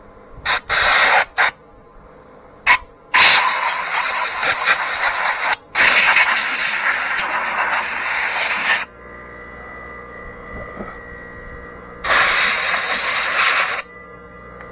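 Pressurised spray hissing in bursts while a chainsaw is cleaned: a few short blasts, then two long ones of two to three seconds each. A quieter stretch with a faint steady hum follows, then one more burst near the end.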